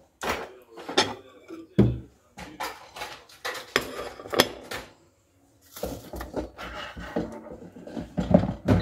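Plates clinking as one is taken from a stack in a kitchen cupboard and handled, then metal tongs tapping on the plate as food is put on it. A run of sharp clinks and knocks, with a short pause about halfway.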